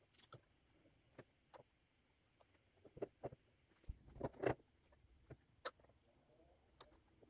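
Faint, scattered clicks and knocks of white PVC pipe fittings being handled and pulled apart from a dry-fitted drain assembly, with a louder cluster of knocks about four seconds in.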